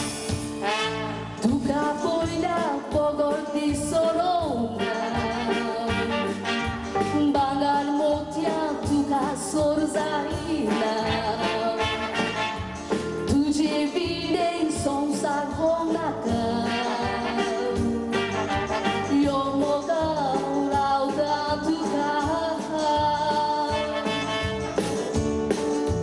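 A woman singing a song into a microphone over backing music with brass and a steady beat, with short instrumental passages between her sung lines.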